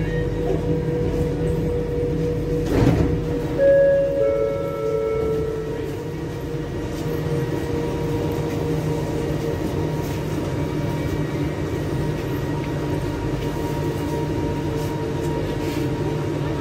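Inside a metro train car standing at a station: a steady hum of the carriage, a sharp knock about three seconds in, then a short chime of a few tones as the sliding doors open.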